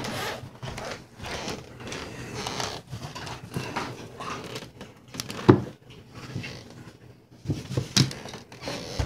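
A cat scuffling and pouncing on a hardwood floor while tangled with a string toy: irregular scrabbling, paw taps and thumps, the loudest thump about halfway through.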